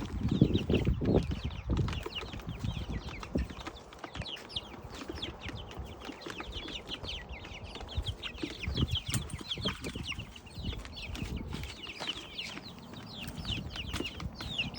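A flock of backyard chickens peeping and clucking steadily as they eat, many short high calls falling in pitch. Low thumps and knocks come in the first two seconds and again around nine seconds in.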